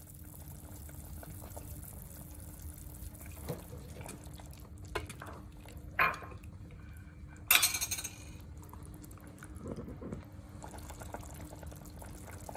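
Fish soup simmering in a metal pot with a steady low bubbling, while a metal ladle stirs it and knocks against the pot a few times. The loudest knocks come about six and seven and a half seconds in.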